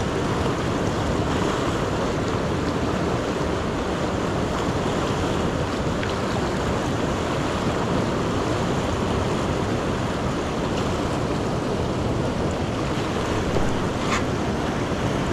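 Steady rushing of a river's current, an even noise at a constant level. A faint short click comes about fourteen seconds in.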